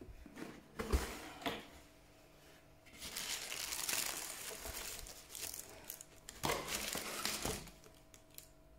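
Tissue paper rustling and crinkling as it is pulled back from the shoes in a cardboard shoebox, in two long spells in the second half. A few knocks of the shoebox being opened come first.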